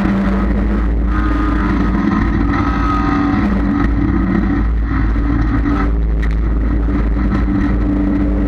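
Dirt-track stock car engine running at a steady, moderate speed at caution pace, heard from inside the cockpit. Its pitch holds nearly level throughout, with a slight dip about five seconds in.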